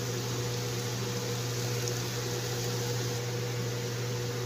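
Boneless chicken sizzling in an uncovered steel pan as the last of its cooking water boils off, a steady hiss with a constant low hum underneath.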